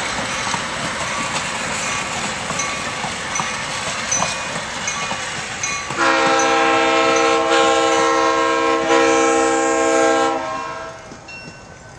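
Stainless-steel streamlined passenger cars of the Nebraska Zephyr rolling past close by, wheels clicking over the rail joints. About six seconds in, the lead EMD E5 diesel locomotive's horn sounds one long chord for about four seconds, then the horn stops and the train noise falls away as the last car passes.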